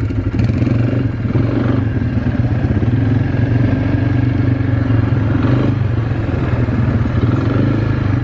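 Quad bike engine running steadily, its pitch shifting slightly a few times as the thumb throttle is worked.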